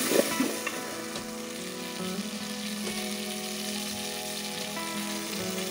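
Chopped tomatoes and spices frying in oil in an aluminium pot, sizzling steadily as they cook down to soften.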